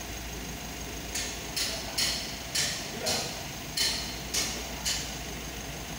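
Mitsubishi L300 Euro 4 diesel engine idling steadily in the background. About a second in, a run of about eight short, sharp bursts of high hiss starts at uneven spacing and stops about a second before the end.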